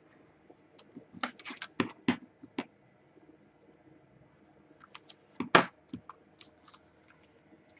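Paper and washi tape being handled and pressed onto a page: scattered short rustles, taps and scratches in two brief clusters, the sharpest tap about halfway through.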